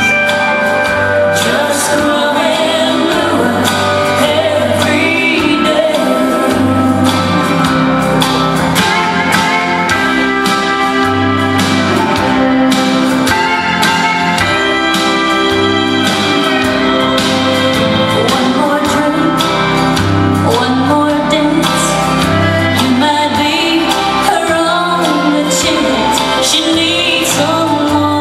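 Recorded country song with singing over a steady beat, played over loudspeakers in a hall.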